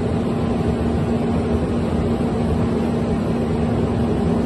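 Steady, even noise with a constant low hum, machine-like and unchanging.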